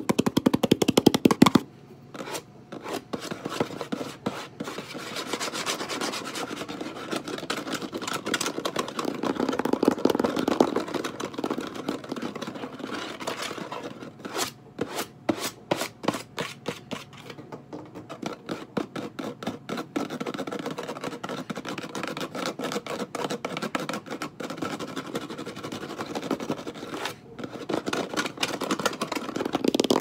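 Fingernails tapping and scratching fast and aggressively on a windowsill: a dense run of quick clicks and scrapes broken by a few short pauses. The loudest tapping comes at the start and again near the end.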